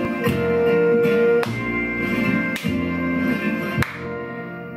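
Recorded French chanson music playing, an instrumental passage of held notes with plucked strings, growing softer in the last second.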